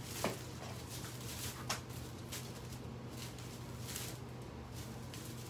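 Steady low hum with a few faint clicks and light rustling of things being handled, two small clicks standing out near the start.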